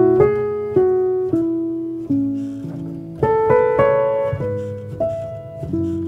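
Background piano music: slow single notes and chords, each struck and left to ring and fade.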